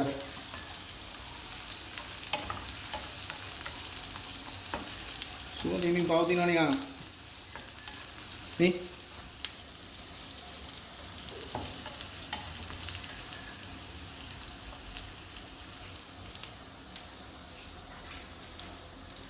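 Sliced red onions sizzling steadily in hot oil in a non-stick frying pan, stirred with a plastic slotted spatula, with small scraping ticks. A short voice-like sound about six seconds in is the loudest moment, and a sharp tap comes a couple of seconds after it.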